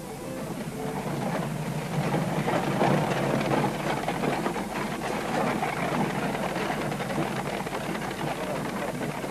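Horse-drawn carriage rolling over a gravel drive, its wheels crunching and the horse's hooves on the gravel, a steady rumble that grows louder over the first two seconds as it approaches.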